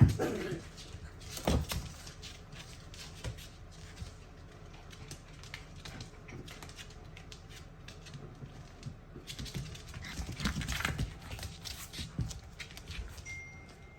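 A puppy barking sharply right at the start and again about a second and a half in, followed by faint scattered clicks and scuffling.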